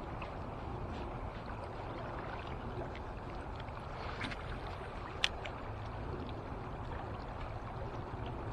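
Steady rush of river water, with a sharp click about five seconds in.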